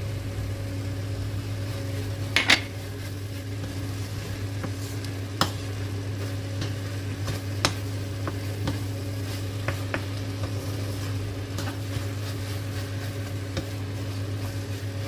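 Wooden spoon stirring minced pork lungs and onions sautéing in a nonstick wok: a soft sizzle with scraping, and a few sharp taps of the spoon against the pan. A steady low hum runs underneath.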